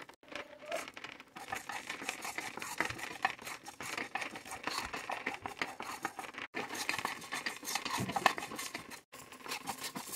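Wooden spatula stirring dry cumin, fennel seeds and black peppercorns around a non-stick frying pan as they dry-roast: a run of small scraping and rattling clicks from the seeds moving across the pan, broken twice by brief dropouts.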